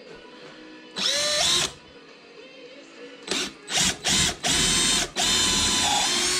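Power drill drilling screw holes: one short run that winds up in pitch about a second in, then a few quick trigger blips and two longer runs in the second half.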